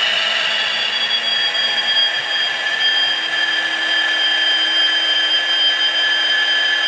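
N gauge Dapol Class 66 model locomotive running slowly, giving a steady high-pitched whine made of several held tones that shift slightly in pitch about a second in.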